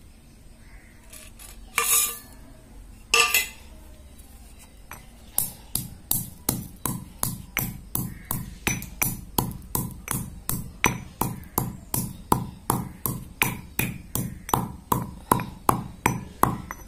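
Stone pestle pounding in a stone mortar: two single knocks, then a steady rhythm of sharp strikes, about three a second.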